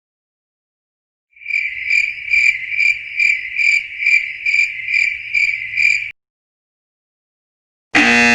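Cricket-chirping sound effect: a steady high trill that pulses about two or three times a second, then stops abruptly. Near the end a loud game-show-style buzzer sounds.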